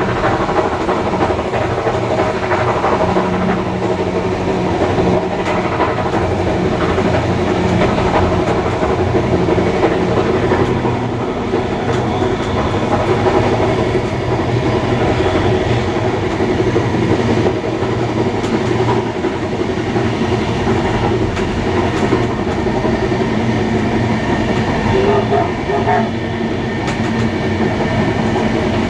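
Steam-hauled passenger train running along the line: a steady rolling rumble of wheels on rails, unbroken throughout.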